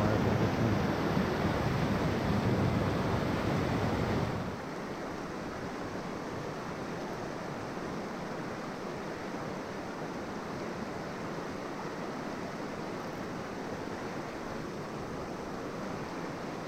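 River water rushing in a steady noise, which drops to a quieter level about four and a half seconds in.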